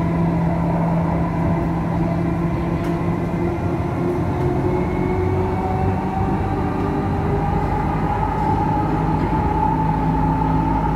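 Electric metro train running on an elevated track, heard from inside the carriage: a steady rumble of wheels on rail with a whine that rises slowly in pitch over the second half.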